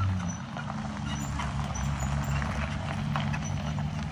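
Ford F53 motorhome's 6.8-litre V10 engine running at low speed as it rolls slowly, with its tyres crunching and popping over loose gravel in irregular clicks.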